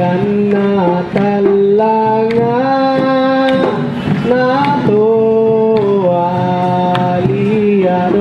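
Music for a Pakarena dance: a long-held sung melody that slides between notes, over scattered drum strokes.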